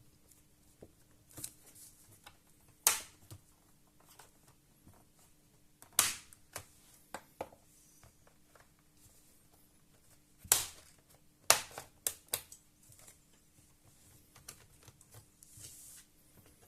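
Scattered sharp plastic clicks and taps from handling a laptop, with several louder knocks a few seconds apart, over a faint steady hum.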